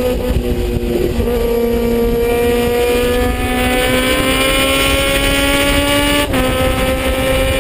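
Suzuki Bandit 650 S's inline-four engine accelerating hard, its pitch climbing steadily through the revs, then dropping suddenly with an upshift about six seconds in. Wind rushes over the microphone throughout.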